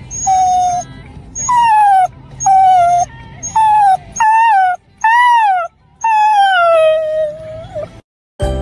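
A dog whining and howling in a series of about eight short high calls, several bending up and then falling in pitch, the last one drawn out and sliding down.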